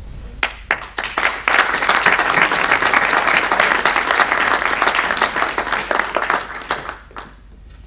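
Audience applauding: a few scattered claps that swell into steady applause, which dies away about seven seconds in.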